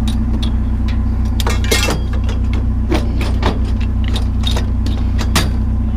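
A truck engine idles steadily under several clinks and knocks as stakes are slid into a gap in the scrap loaded on the truck.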